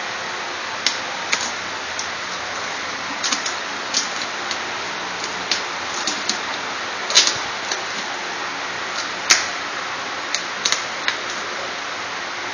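Irregular sharp crackles and taps of plastic shrink-wrap being pierced and pulled off a camera box with a pen tip, over a steady background hiss.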